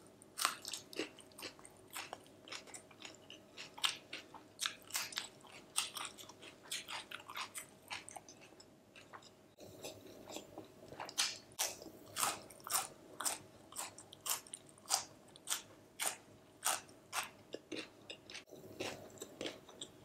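Close-miked chewing of a mouthful of raw onion ring: a run of crisp, wet crunching clicks, a few a second, getting louder again about eleven seconds in.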